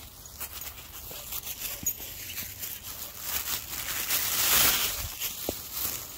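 Rustling and scattered light clicks of a handheld phone being moved about, swelling into a loud rustle about four and a half seconds in.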